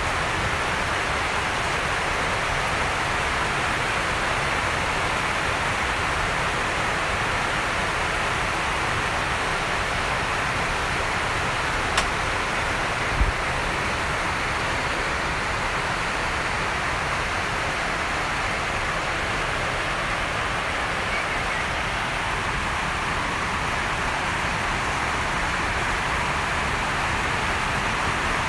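A steady rushing hiss with no changes, broken by one sharp click about twelve seconds in and a brief low thump a second later.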